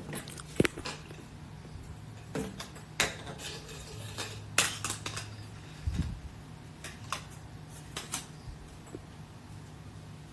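Scattered light clicks and knocks at irregular intervals, over a faint steady low hum.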